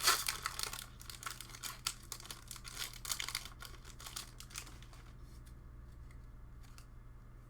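Foil booster pack wrapper being torn open and crinkled, a dense crackling that dies down about five seconds in, followed by a few faint clicks.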